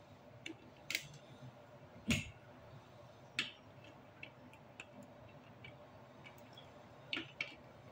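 Plastic Lego Duplo bricks clicking and knocking as they are handled and pressed together, with irregular sharp clicks. The loudest, about two seconds in, comes with a dull knock.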